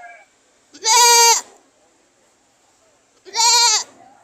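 A goat bleating twice, two loud high-pitched calls about two and a half seconds apart, each held level and dropping slightly in pitch at the end.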